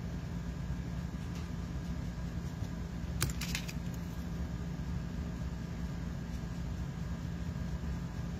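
Steady low hum of room noise, with a quick cluster of light clicks about three seconds in as a blending tool is set down on the work surface and another picked up.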